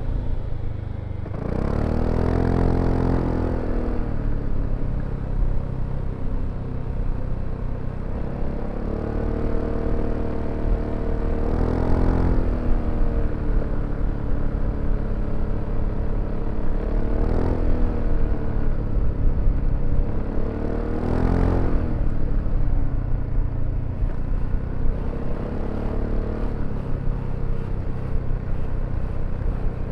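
BMW C400X scooter's single-cylinder engine under way, its note rising with the throttle and falling back several times as the scooter accelerates and eases off, over steady wind and road noise.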